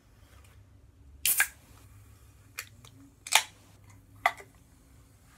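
A carbonated soda can being opened: sharp cracks with short hissing bursts, the loudest about a second in and another near the middle, between lighter clicks.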